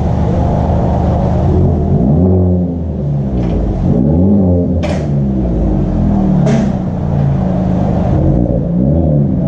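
A 2020 Honda Civic Type R's 2.0-litre turbocharged four-cylinder, run through a muffler- and resonator-deleted exhaust, revving up and falling back several times. Two brief sharp snaps come about five seconds in and again a second and a half later.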